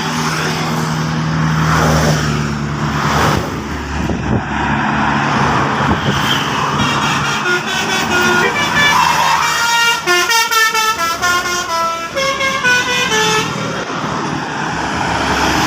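A bus engine running as it passes, then a telolet multi-tone horn playing a quick melody of stepped notes for several seconds.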